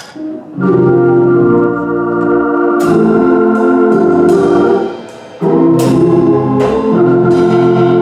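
Hammond-style organ playing loud sustained chords as the introduction to a gospel song, with sharp percussion hits among the chords; the chords stop briefly about five seconds in, then come back.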